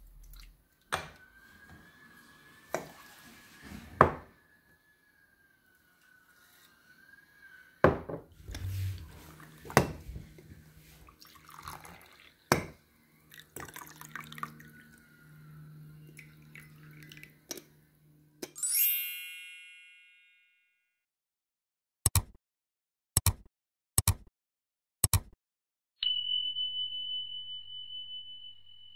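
Miso soup ladled into a lacquered bowl with clinks and knocks, then green tea poured into ceramic teacups. Past the middle, a bell-like chime rings and fades, followed by four sharp ticks about a second apart and then a steady high tone.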